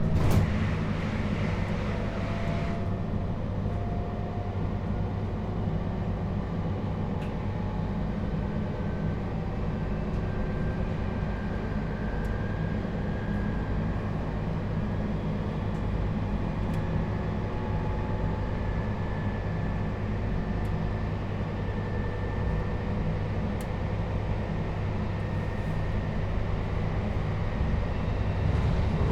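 Running noise inside a JR Hokkaido 721 series electric multiple unit motor car with a Toshiba GTO inverter, travelling between stations: a steady rumble of wheels on rail with faint thin tones over it. A hiss in the first few seconds cuts off suddenly, and the rumble grows a little louder near the end.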